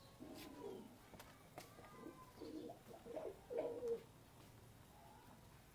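Domestic pigeons cooing, a series of low coos in short clusters, the loudest about three and a half seconds in, with a few faint clicks.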